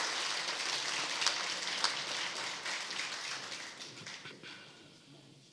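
Audience applause, many hands clapping, fading away over the last two seconds.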